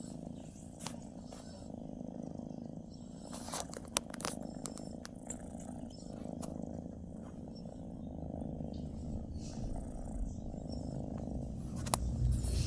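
Domestic cat purring steadily, with a few light clicks over it.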